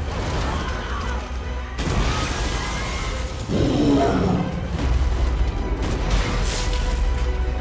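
Action film soundtrack: music over a deep rumble, with crashes and booms of destruction, a heavy hit about two seconds in and another about three and a half seconds in.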